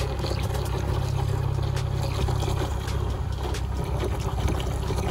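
Vinegar pouring out of a one-gallon jug into a container, over a steady low rumble.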